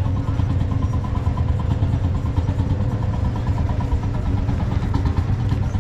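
Vintage tractor engines running steadily, with no break or change in pitch.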